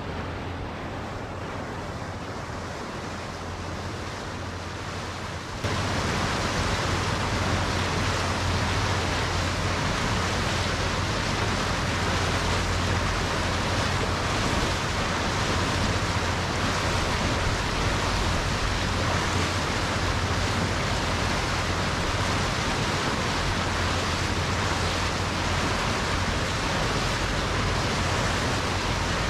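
Steady rushing noise of wind and water on a moving river boat, with a low steady hum underneath. It turns suddenly louder about five and a half seconds in.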